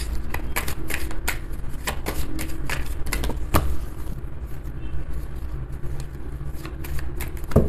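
A deck of tarot cards being shuffled by hand: a run of irregular quick clicks, with a louder one a few seconds in and another near the end, over a steady low rumble.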